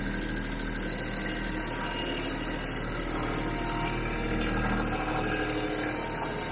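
Kubota B2650 compact tractor's three-cylinder diesel engine running steadily, growing a little louder midway.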